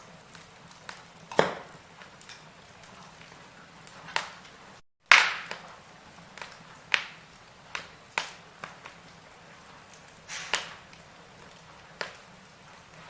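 Wood fire in a fireplace crackling, with sharp irregular pops over a faint steady hiss. The loudest pop comes about five seconds in, right after a brief dropout.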